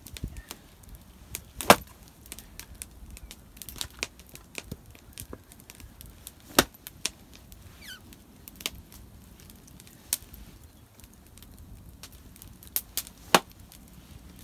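Wood being chopped: irregular sharp strikes, the loudest about two seconds in and in the middle, then three close together near the end.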